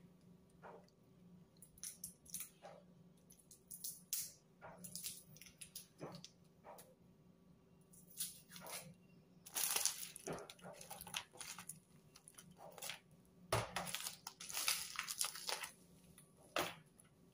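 Scattered clicks and rustles of a glass jar being handled and its screw lid turned, with a plastic bag crinkling near the end.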